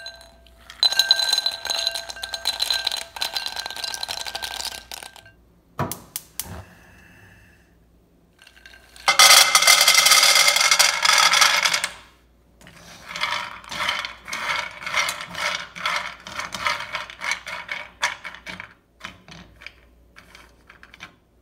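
Raw cashews clattering into a glass bowl, the glass ringing under the rattle. About nine seconds in, a loud rush as cashews are poured into a dry nonstick pan, followed by a fast rattling of cashews being moved around in the pan, with a few scattered clicks near the end.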